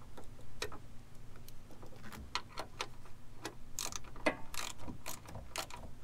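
Hand ratchet clicking in short strokes as a 13 mm brake-line bracket bolt is snugged down by hand: a run of irregular clicks, sparse at first and coming thicker after about two seconds.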